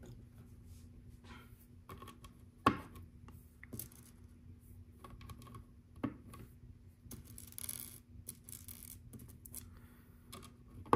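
Small plastic LEGO round tiles clicking as they are pressed onto the studs of a LEGO Art baseplate, a scattering of light clicks with a couple of sharper snaps. Past the middle comes a short rattle of loose pieces being stirred in a pile.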